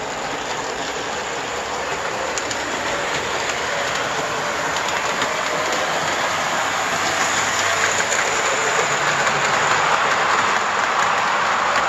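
Vintage brass O scale model steam locomotive and its metal passenger cars running on the track: a steady rolling rattle of metal wheels on the rails, growing gradually louder as the train comes closer.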